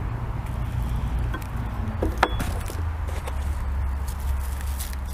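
Aluminium bench-rest parts being handled and fitted together, with a few light knocks and one sharp metallic clink about two seconds in, over a steady low hum.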